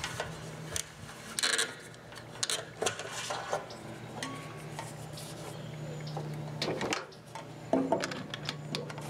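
Plastic clicks, knocks and rubbing as a cartridge-style live well pump is twisted and pulled out of its base and handled with its wires, over a steady low hum.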